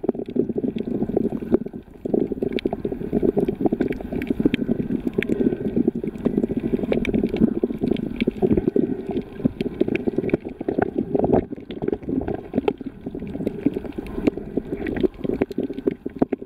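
Underwater sound picked up by a submerged camera: a dense, muffled rush of moving water with many short, sharp clicks scattered through it.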